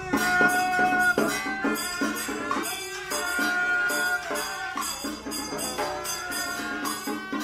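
Music: a held, wavering melody over a steady beat of rattling percussion strokes.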